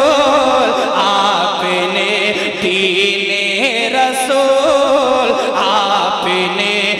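A man's voice chanting an Urdu manqabat for Imam Hussain through a stage microphone and PA, in long wavering melismatic lines with no break, over a steady low tone.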